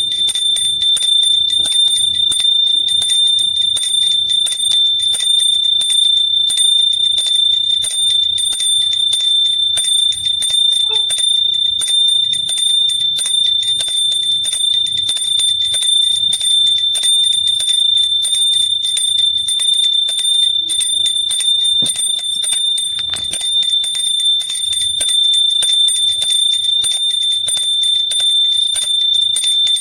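Small hand bell rung continuously, its clapper striking rapidly to keep up one steady, high ring.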